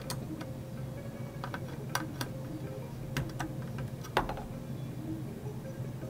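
Screwdriver working a screw in a sheet-metal hard-drive cage: a dozen or so irregular small metallic clicks and ticks, a sharper one about four seconds in, over a steady low hum.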